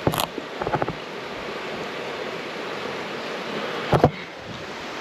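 Steady rushing of a fast-flowing, muddy river, with a thud about four seconds in.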